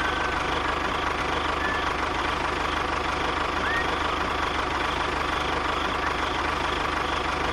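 A tractor engine running steadily at low revs, with an even, regular beat. A few short, high chirps sound over it.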